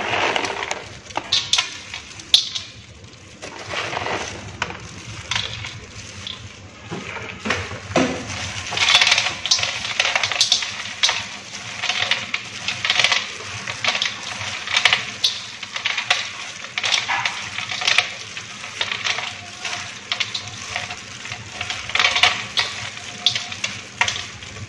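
Gloved hands tossing a pennywort and peanut salad in a stainless steel bowl: plastic gloves crinkling, leaves rustling and peanuts clicking against the metal in an irregular run of crackles.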